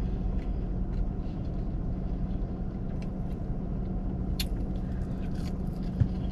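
Idling car engine: a steady low rumble and hum, with a few faint clicks and one short thump near the end.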